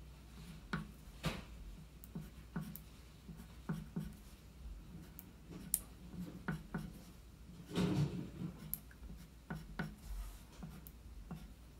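Black wax crayon scratching short strokes onto paper laid on a wooden table: a string of brief scrapes and taps, with a longer, louder rub about eight seconds in.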